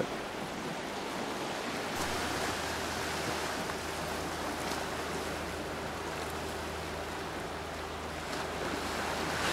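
Small waves washing against a rocky shore: a steady surf wash with a little wind. A low steady hum comes in about two seconds in.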